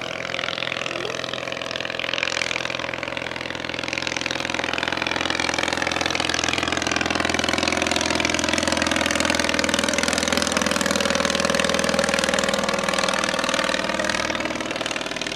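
The 1923 English Electric Wren's tiny 398cc ABC flat-twin motorcycle engine turning its propeller in a low flypast. The engine note grows louder as the aircraft comes past and its pitch bends as it goes by.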